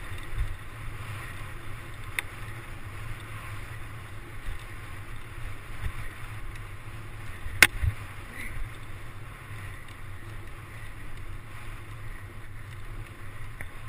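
Mountain bike rolling fast along a dirt trail: a steady rush of wind on the microphone with the rumble and rattle of the bike. A sharp knock about seven and a half seconds in, and a lighter click about two seconds in.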